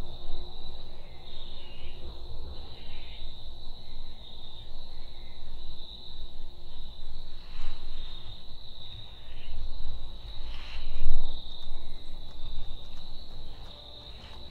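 Crickets trilling in a steady, high, unbroken chorus over an uneven low rumble, with a couple of faint brief rustles.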